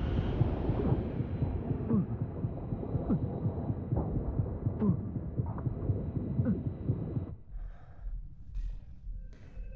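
Muffled underwater ambience of a diver submerged in a flooded chamber: a dense low rumble with scattered short bubbling blips. It cuts off abruptly about seven seconds in, leaving a much quieter room tone.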